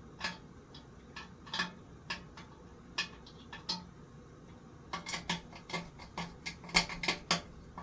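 Metal parts and tools clinking and clicking as they are handled. The knocks are scattered at first, then come in a quick run of a dozen or so near the end.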